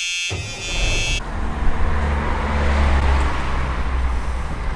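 Steady outdoor city background noise, a low rumble with traffic-like hiss. Within the first second a buzzer-like sound effect cuts off.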